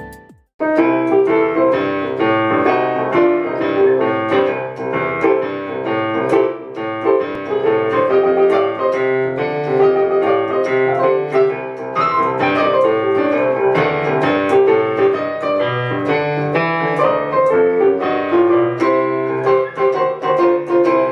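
Alesis Recital digital piano being played: a continuous piece of many notes and chords, beginning about half a second in after a brief break.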